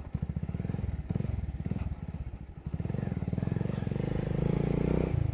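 Motorcycle engine running at low revs, its exhaust pulses uneven at first, then steadier and slowly louder in the second half.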